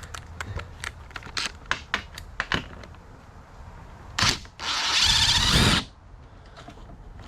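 Hand socket ratchet working a small bolt loose: scattered ratchet clicks, then a quick run of rapid clicking for about a second near the middle.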